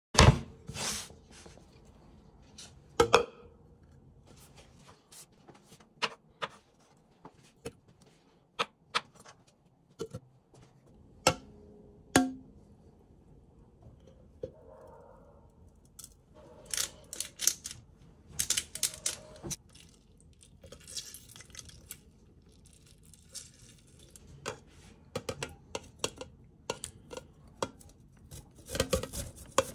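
Kitchen preparation sounds: scattered sharp clicks and knocks of utensils and ingredients against a plastic blender beaker and a wooden board, with a stretch of scraping in the middle. Near the end comes a quick run of rasping strokes as a garlic clove is grated on a metal grater into the beaker.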